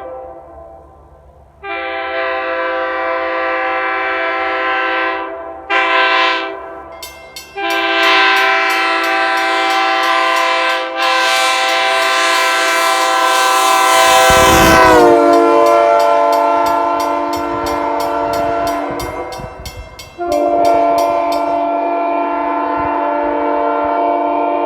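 Nathan Airchime K3L three-chime train horn, with its number 3 bell tuned to 480 Hz, sounding its chord in several blasts: a long blast, a short toot, a long blast whose chord sags lower in pitch partway through, and another long blast near the end.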